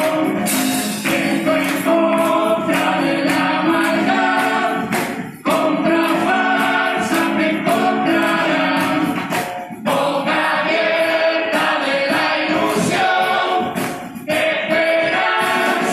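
Murga choir singing the farewell song (despedida) in harmony, phrase by phrase, with percussion hits throughout. The singing breaks off briefly three times, about five, ten and fourteen seconds in.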